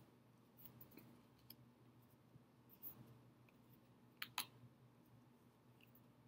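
Near silence broken by a few soft clicks of thick, stiff oracle cards being handled, with two sharper clicks close together about four seconds in.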